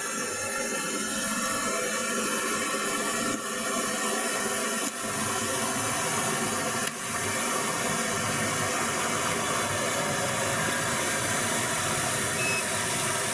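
Steady rushing water of a waterfall, a loud even hiss that briefly dips three times.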